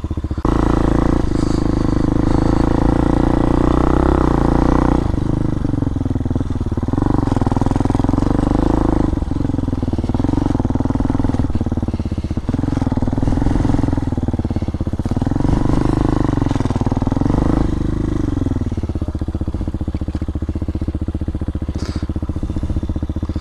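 Hawk 250 DLX dual-sport motorcycle's single-cylinder engine pulling along a trail under changing throttle, its pitch rising and falling in about five surges. About three quarters of the way in it settles to a steadier, lower running as the bike slows to a stop.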